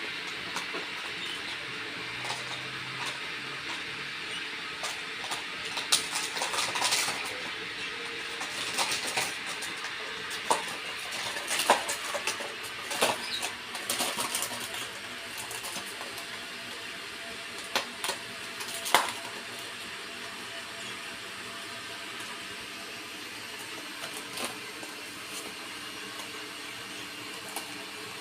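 Birds squawking and chattering in short, harsh calls over a steady background hiss, busiest in the first half and thinning out later.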